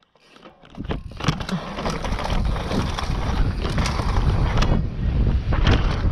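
Wind buffeting the microphone of a camera moving fast down a trail, a heavy rumble with scattered clattering knocks; it starts faint and picks up about a second in.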